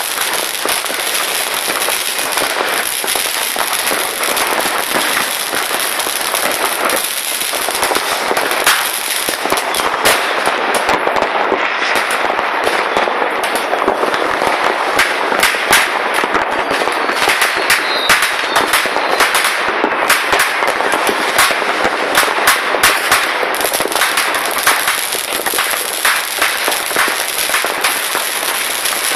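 Many fireworks going off at once across a town: firecrackers and rockets make a continuous crackle of pops and bangs, thickest in the middle.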